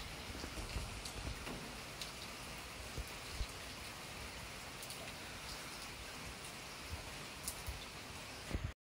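Steady rain falling on a garden, a constant hiss with scattered sharper drop hits; it cuts off suddenly near the end.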